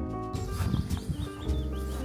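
Background music with held notes, joined about a third of a second in by outdoor sound with a run of short, high chirps.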